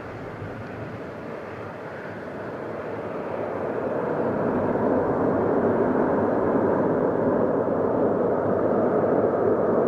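Twin-engine jet airliner's engines at takeoff power as it rolls down the runway. The roar grows between about three and five seconds in, then holds steady.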